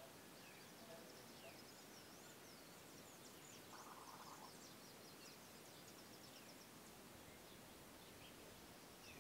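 Faint outdoor background with distant birds chirping, and one short buzzy trill about four seconds in.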